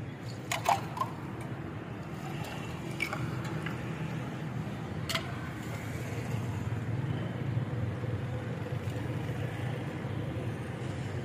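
Steady hum of street traffic, with a few sharp clinks of steel mugs and glasses being handled, the loudest cluster about half a second to a second in and another single clink about five seconds in.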